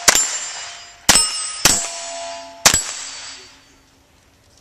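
Four .22 rimfire rifle shots in quick succession, the second and third about half a second apart, each answered by the ring of a struck steel target plate. The ringing fades away after the last shot.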